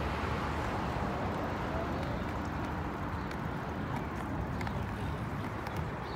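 Steady outdoor city background noise with road traffic, and a few faint clicks.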